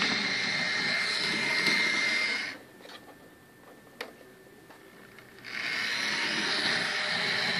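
Small DC motor of a Bachmann Brooklyn Peter Witt HO scale model streetcar running, a steady whir with a faint high whine as it rolls along the track. It stops about two and a half seconds in, a single click sounds during the pause, and the motor starts again about three seconds later.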